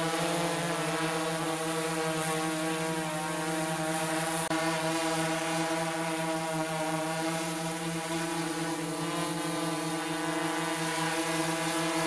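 Quadcopter drone's propellers hovering: a steady buzzing whine of several tones with a slight waver. It drops out very briefly about four and a half seconds in and then carries on.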